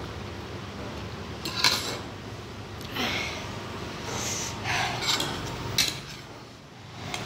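Metal fork and spoon clinking and scraping against a ceramic bowl of noodles, a few sharp clinks, with noisy breaths in between from the burn of very spicy noodles.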